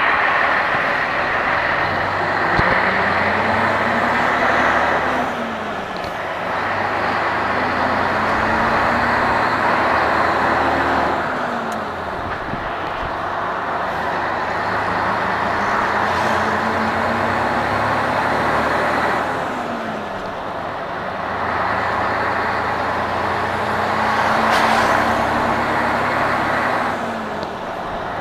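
Scania "Jacaré" conventional truck's diesel engine heard from inside the cab, pulling away and working up through the gears: the engine note climbs, then drops at each shift, four times over.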